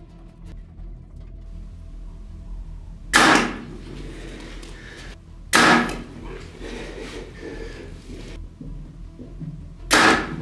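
Three separate bow shots, each a sharp, sudden crack of the bow's release with the arrow's strike, about three seconds in, about two and a half seconds later, and near the end.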